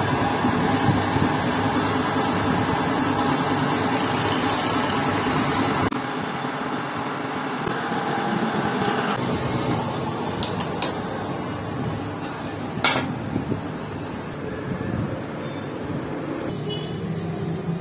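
Metal-turning lathe running steadily, its cutting tool turning down a motorcycle wheel hub. The noise drops about a third of the way in, and in the second half a few sharp metallic clicks sound over a quieter machine hum.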